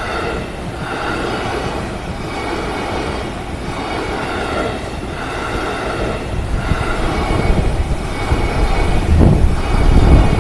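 JR Ome Line train approaching and passing over a level crossing, its rumble building to the loudest point near the end, while the crossing's warning bell sounds about once a second.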